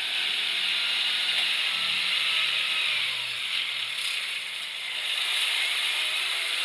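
Concrete mixer truck heard at close range: a steady rushing hiss with little low rumble.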